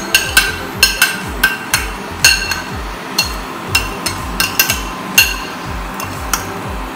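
A metal spoon clinking sharply and repeatedly against a plate and a steel saucepan as tea powder is knocked into the milk and stirred. The strikes come thick and fast in the first three seconds and thin out after that, over background music with a steady beat.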